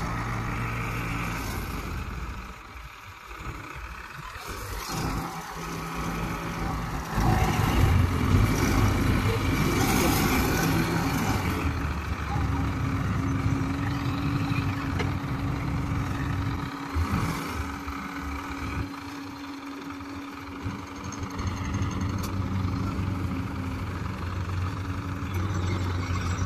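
Diesel engines of heavy machinery, a mobile crane and an excavator, running steadily near idle. They get louder about seven seconds in, then settle back into an even running note.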